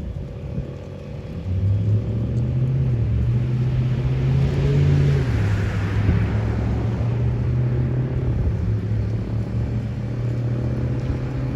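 A car driving past: engine and tyre noise swell up to a peak about five seconds in, drop slightly in pitch as it passes, then fade.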